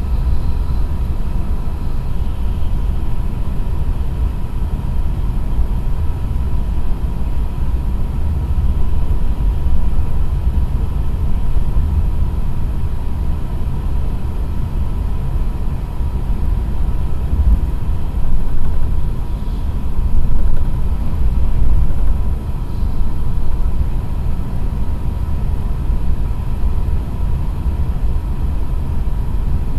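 Cabin noise inside an E6 series Shinkansen cruising at about 300 km/h: a steady low rumble of the running gear and air rush, with a faint steady high whine over it. The noise swells briefly twice about two-thirds of the way through.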